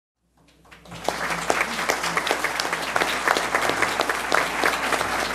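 Audience applauding, a dense patter of many hands clapping that fades up from silence within the first second.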